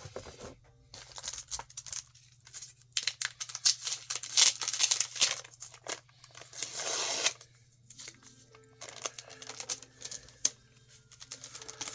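Plastic and paper crinkling and rustling as bagged comic books and packing material are handled, in irregular bursts with a longer crinkle about two thirds of the way through.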